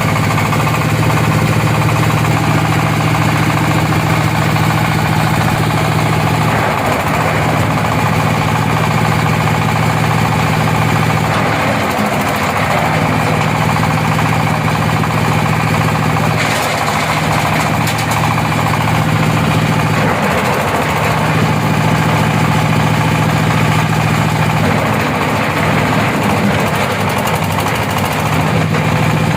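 Engine-driven oil palm fruit thresher running steadily, a loud engine hum under a continuous mechanical rattle. The hum dips briefly about five times.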